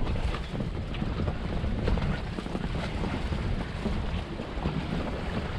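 Wind buffeting the microphone over the low, steady rumble of a small fishing boat on open sea, with a few faint ticks.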